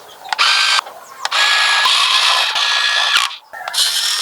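A small electric motor and gears whirring in three bursts: a short one, a long run of about two seconds, then another.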